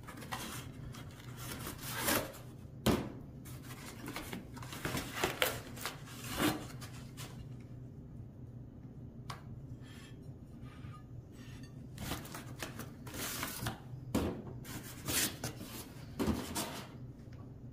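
Stoneware dinner and salad plates and their cardboard separators being handled: irregular rubbing and scraping with several sharp knocks as plates are set down, in two clusters with a quieter stretch between.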